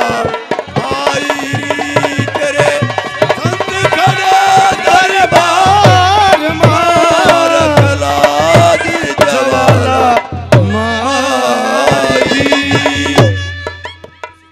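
Haryanvi folk music: a wavering, bending melody line over regular hand-drum beats. It stops about thirteen seconds in and fades out.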